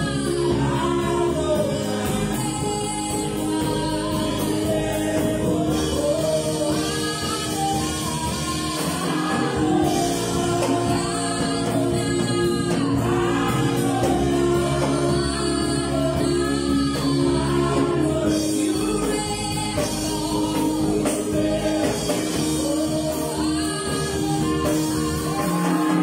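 Live gospel worship singing: a male lead and several female voices singing into microphones over sustained keyboard chords.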